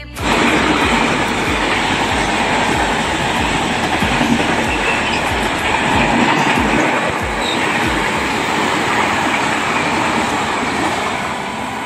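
Indian Railways passenger train with sleeper coaches passing close by along a station platform: a steady rushing rumble, with the wheels clattering over the rail joints.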